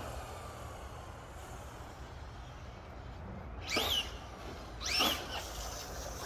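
Traxxas Drag Slash RC car's brushless Velineon electric motor whining up in pitch in two short bursts of acceleration, about a second apart.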